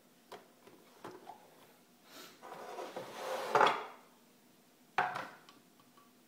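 Glass blender jar handled on its base: a few light clicks, then a scraping rattle that swells to its loudest about three and a half seconds in as the jar is lifted off, and a single sharp knock about five seconds in.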